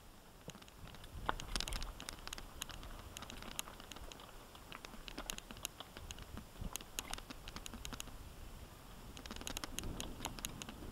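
Mountain bike riding over a dirt singletrack: irregular clicks and rattles of chain and frame over bumps, over a low rumble of tyres on the trail.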